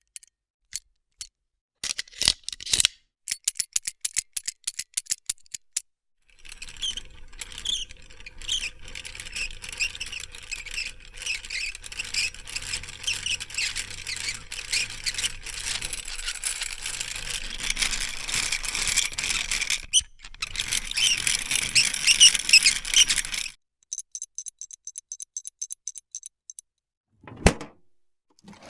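A string of separate mechanical noises: a few clicks, then rapid clicking, then a long stretch of dense squeaking and rattling machinery over a low hum. Near the end come fast, high ticking and a single thump.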